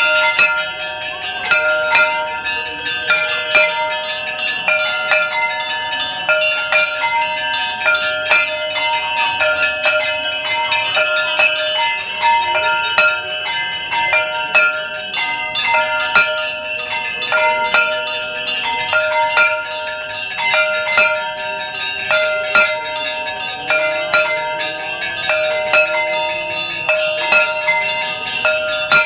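Brass Hindu temple bells rung over and over: a steady stream of clanging strikes, a few a second, their ringing overlapping, with music mixed in.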